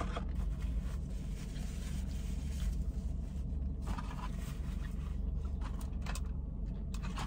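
Quiet chewing, with light scrapes and rustles as fries are picked out of a cardboard carton, over a steady low hum.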